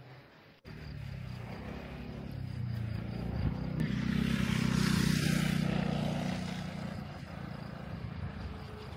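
An engine passing by: a low engine drone that swells to its loudest about five seconds in, with a brief hiss at its peak, then fades.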